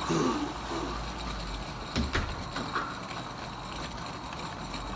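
A delivered piece of furniture being set down: a low rumble and faint scraping, with a single knock about two seconds in and a few light clicks after it.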